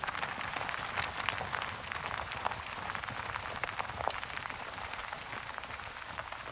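Herd of longhorn cattle on the move, a dense, steady clatter of many hooves trampling over dirt.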